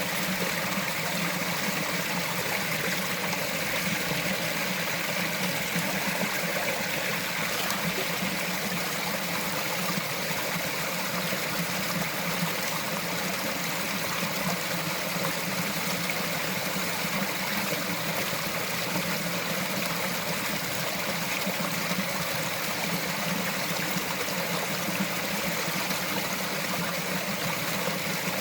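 A small mountain stream running and trickling over rocks, a steady babbling rush of water.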